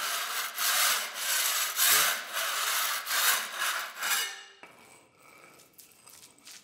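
A wide hand scraper rasping over an old plastered wall in quick repeated strokes, about seven in four seconds, scraping off a coat of flaking, loose paint and plaster. The strokes stop about four and a half seconds in, leaving only faint scratching.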